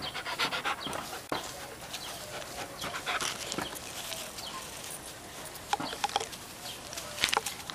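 A pet dog breathing and moving about, with irregular short clicks and rustles throughout.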